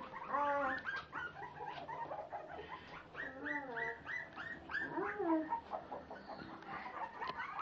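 Litter of five-week-old Staffordshire puppies whimpering and yipping: short high-pitched cries, many of them falling in pitch, coming one after another.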